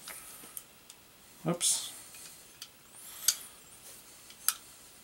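Several sharp, separate clicks and taps of small metal 1911 pistol parts being handled and fitted by hand, the loudest a little past three seconds in.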